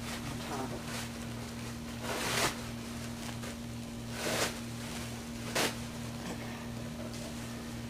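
A steady low hum, with three brief rustling noises about two, four and a half and five and a half seconds in.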